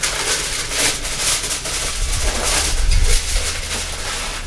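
Aluminium foil crinkling and rustling in irregular bursts as a sheet is pulled from the roll and folded over a baking pan.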